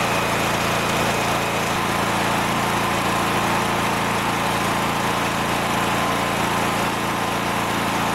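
Generator engine running steadily.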